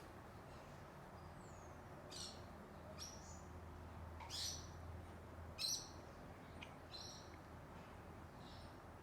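Faint bird chirps: a string of short high calls about a second apart, one a falling whistle, over a low steady hum.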